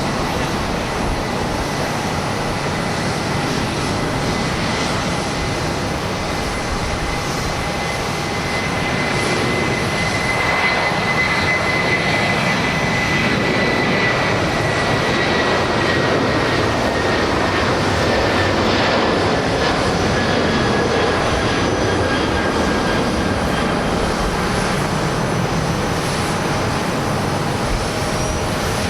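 Jet airliner taking off: the engines run at full power with a steady roar and a high fan whine. The whine slowly falls in pitch as the roar swells to its loudest a little past halfway through.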